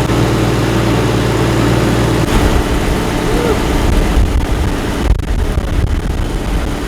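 A river boat's engine running with a steady hum. About two seconds in, the sound turns into an uneven, fluttering low rumble.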